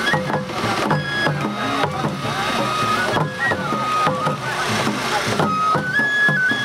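Japanese festival float music (matsuri-bayashi): a shinobue bamboo flute plays a melody of held notes stepping up and down between pitches, over steady beats from a taiko drum.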